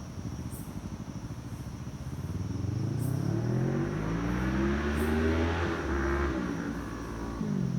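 Kawasaki Ninja 650 parallel-twin engine breathing through a short GP-style exhaust. It idles, is revved up in one smooth rise lasting a few seconds, holds briefly, then drops back toward idle near the end.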